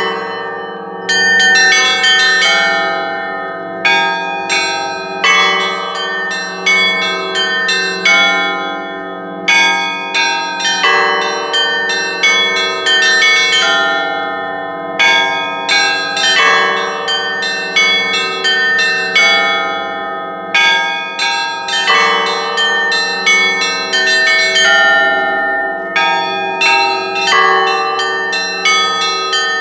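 Church bells rung in the Russian zvon style: a fast, rhythmic jangle of small bells over heavier strikes every second or two, with a steady deep hum from a large bell underneath.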